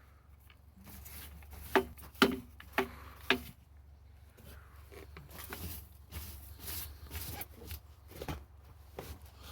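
Four sharp knocks about half a second apart, then scattered lighter clicks and scraping: hand tools and the lid of a skid steer's hydraulic tank being handled as the lid is taken off.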